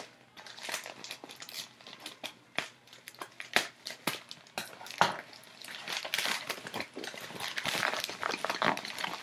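Plastic shipping mailer being cut open with scissors and crinkled as it is pulled apart: a run of sharp crackles and snipping clicks, with denser crinkling in the second half.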